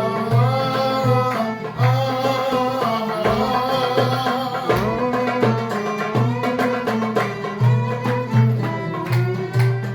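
Instrumental passage of an Iraqi folk song: a melody line with sliding pitch bends played over a regular low drum beat.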